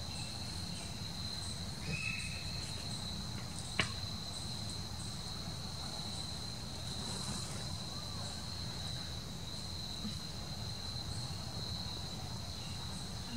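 Insects singing in a steady, high-pitched drone, with a low rumble beneath and one sharp click about four seconds in.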